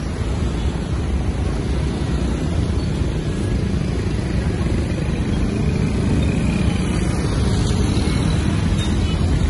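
Steady noise of dense street traffic, mostly motorbikes with some cars, their engines and tyres blending into one continuous sound.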